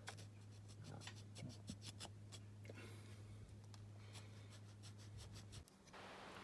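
Faint scraping strokes of a small hand file on the wing of a die-cast model car, smoothing down a hardened super glue and bicarb-of-soda filler repair; the scraping gets louder near the end.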